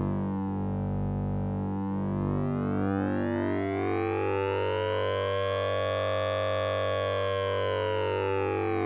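Synthesized sync-and-ring-modulation tone from the Orange Vocoder VST plugin: a steady low drone with a brighter upper sweep that dips early, rises slowly to a peak about six seconds in, then falls again, siren-like.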